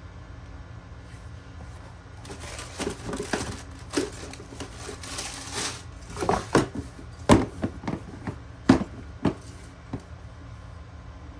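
Handling noise: a few seconds of rustling, then a run of sharp knocks and taps, the loudest two about a second and a half apart, over a steady low hum.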